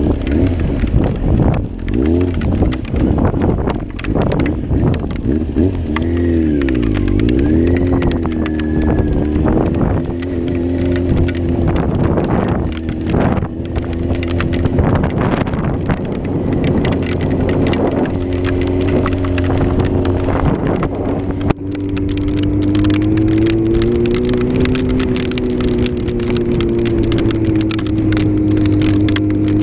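Yamaha R6 inline-four sport bike engine running at low, fairly steady revs, dipping and picking back up about seven seconds in, with wind and weather crackling on the onboard microphone. The sound breaks briefly about two-thirds of the way through.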